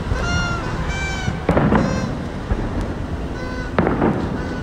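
Fireworks going off: a steady low rumble with three sharp bangs, the loudest about a second and a half in. Short high-pitched cries from an unseen source repeat about once a second throughout.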